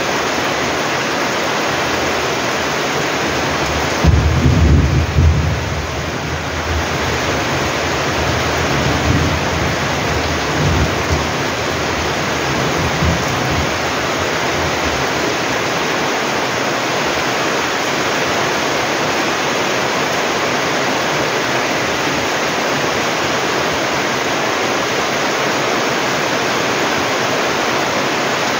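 Heavy typhoon rain pouring steadily onto a flooded yard and roof. A low rumble of thunder starts suddenly about four seconds in, and weaker rumbles follow over the next several seconds.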